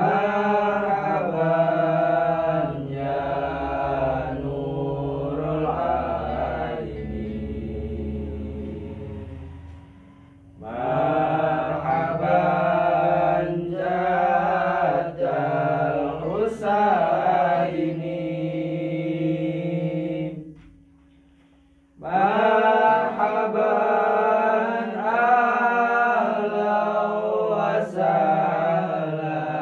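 Four young men's voices singing an unaccompanied Islamic devotional chant in long phrases, with brief pauses about ten and twenty seconds in.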